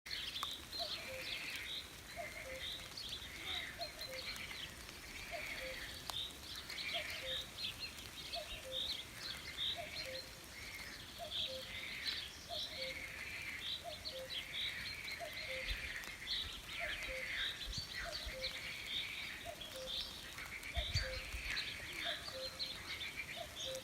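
Birds chirping, many short overlapping calls, with a lower short call repeating about once a second throughout.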